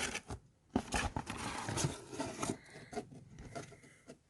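Cardboard packaging being handled and opened: irregular scraping, rustling and small knocks, with a short pause about half a second in.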